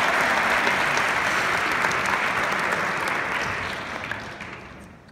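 Large audience applauding, the clapping dying away over the last second or two.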